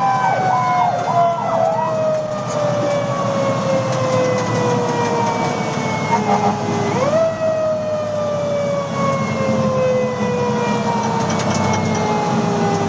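Fire engine's siren heard from inside the cab: a long wail that falls slowly in pitch, rises sharply again about seven seconds in, then falls once more. A quick warbling yelp sounds in the first second, and the truck's engine rumbles underneath.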